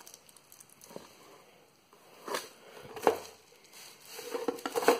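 Handling noise from an Apple external 3.5-inch floppy drive and its cable being turned over on bubble wrap: short rustles and knocks about two and three seconds in, then a longer rustle near the end.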